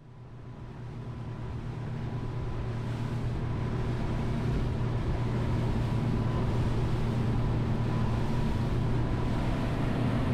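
Outboard motor of a boat running under way, a steady drone with the rush of water along the hull. It grows louder over the first few seconds, then holds steady.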